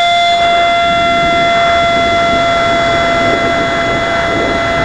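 A 50mm electric ducted fan on a model jet whines at a steady high pitch with overtones. About half a second in, a rushing noise builds underneath it as the jet flies.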